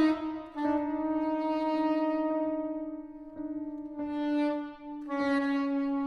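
Saxophone quartet music: long held notes with vibrato, the chord changing a few times.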